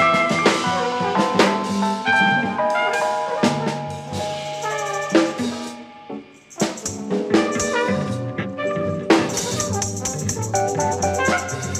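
Jazz sextet playing live: keyboard notes over drums and rattling percussion, with the music thinning out briefly about six seconds in and coming back fuller from about nine seconds.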